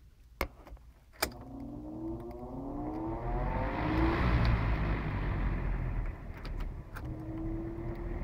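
Restored 1970s JET Nobility 16-inch desk fan started up: two clicks, then its Taiwanese-made motor hums up in pitch as the blade spins up over about three seconds, settling into a steady hum with a rush of moving air.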